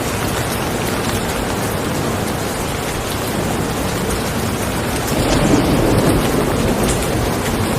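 Steady rain falling, with a low rumble of thunder swelling about five seconds in and fading over a second or two.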